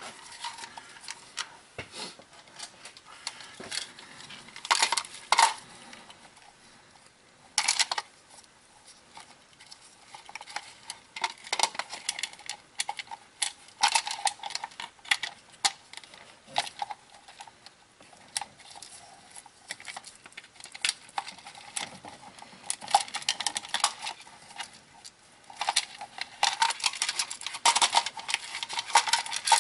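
Spark plug wires being pulled off an old plastic distributor cap and pushed onto a new one by gloved hands: scattered small plastic clicks and rattles, busier near the end.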